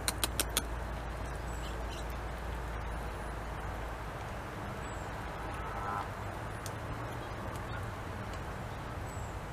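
North American beaver chewing bark held in its forepaws: a quick run of crisp crunching clicks at the start, then softer scattered gnawing ticks over a steady background hiss.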